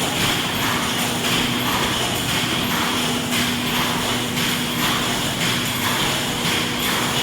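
Metal baler machine running: a steady mechanical hum with a constant low tone over an even noisy din.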